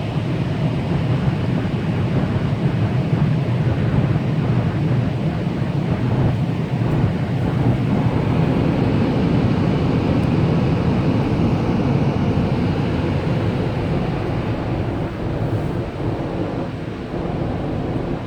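Automatic car wash machinery running, heard from inside the car: a loud, steady rushing noise that eases a little near the end.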